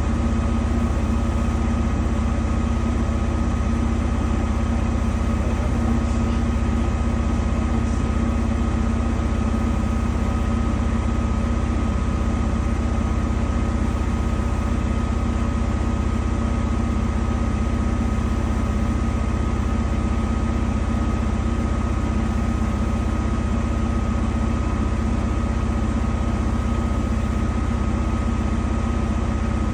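Danube 20 kg washing machine running steadily: a constant low motor hum with a steady higher whine, unchanging throughout.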